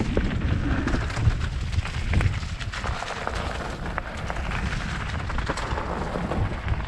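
Wind rushing over the microphone of a downhill mountain bike rider, with tyres rumbling on a dirt trail. Scattered short clicks and knocks from the bike rattling over bumps come through the rush.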